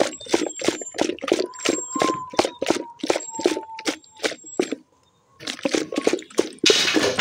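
Improvised soundscape made by schoolchildren to evoke a waterfall: rapid, irregular tapping and clicking, about four a second, breaks off briefly about five seconds in, then resumes. A short rushing hiss comes near the end.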